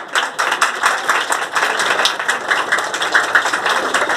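An audience applauding, many hands clapping at once in a dense, irregular patter.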